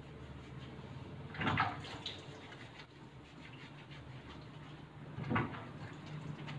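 Water and washing sounds as a dog is bathed, faint over a steady low hum, with two short louder sounds about a second and a half in and near the end.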